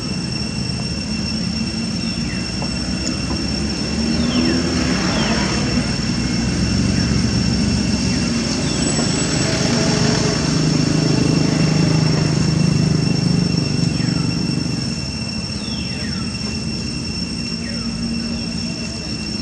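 Low rumble of a passing motor vehicle, swelling for about ten seconds and then fading, over a steady high insect drone, with short falling bird chirps now and then.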